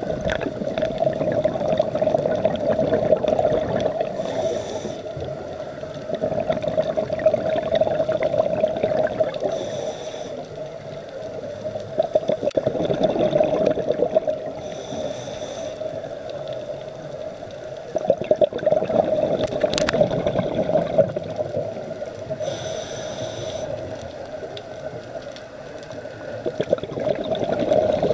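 Scuba diver breathing through a regulator underwater: a burst of exhaled bubbles about every five to six seconds, with a brief hiss of inhalation between the bursts.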